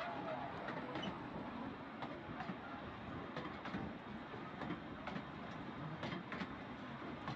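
Small open-carriage tourist train rolling slowly past close by on its jetty track: a steady rumble of wheels on rail, with irregular sharp clicks from the wheels over the rail joints.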